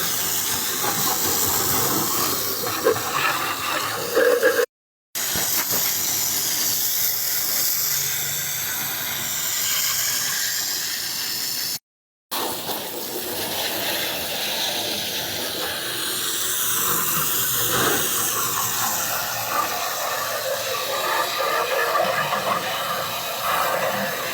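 Water spraying with a steady hiss as heat pump coils are rinsed during cleaning. The sound drops out to silence twice for a moment.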